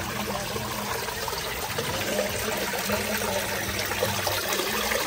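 Small waterfall running over stacked flat stones and splashing steadily into a pond.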